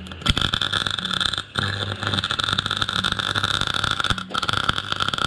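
MIG welder arc crackling steadily as weld is run onto a holed Volvo Penta MD1B cylinder head, breaking off briefly twice, about a second and a half in and again about four seconds in.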